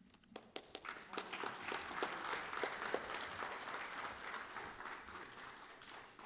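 Audience applauding: a few separate claps about half a second in quickly swell into steady applause, which fades near the end.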